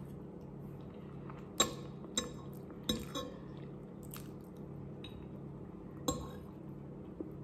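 Metal fork clinking against a ceramic plate in a few short, sharp strikes as noodles are picked up, the loudest about a second and a half in and one more about six seconds in. A steady low hum runs underneath.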